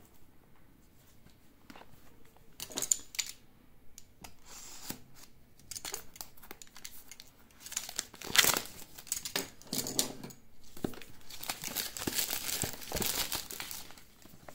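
Packaging being handled and opened by hand: irregular crinkling, rustling and tearing in bursts, sparse at first and busiest in the second half.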